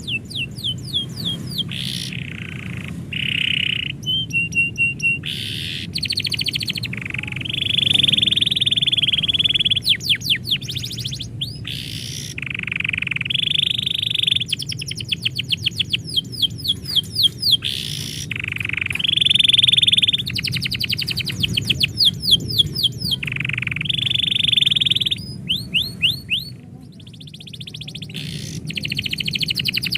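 Domestic canary singing a long, continuous song: fast trills of repeated sweeping notes alternating with sustained rolling phrases, with only brief gaps between phrases.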